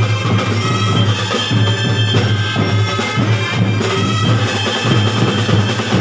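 Drum and bugle corps playing: brass horns holding sustained chords over drumline percussion.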